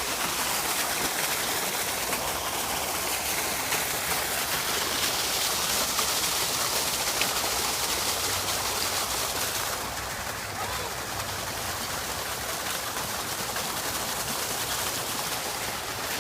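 Steady rushing and splashing of running water from an artificial waterfall, a little quieter from about ten seconds in.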